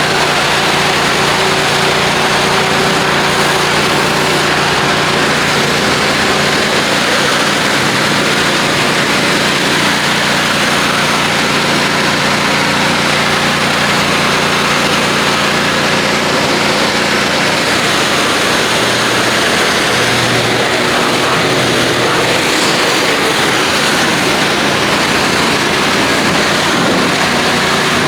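Gas-engine 3200 psi pressure washer running steadily under load while its high-pressure water spray hisses, rinsing foam off a truck.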